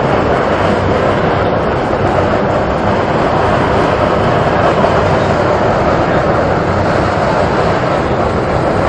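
A hot mud eruption blasting mud and water out of the ground: a loud, steady rushing noise with no breaks.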